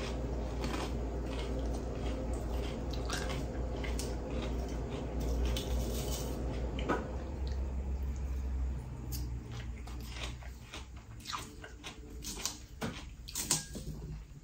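Close-up chewing of crisp salad greens: crunches and wet mouth clicks, with a wooden fork tapping and scraping in a ceramic bowl. A steady low hum runs underneath and stops about nine seconds in.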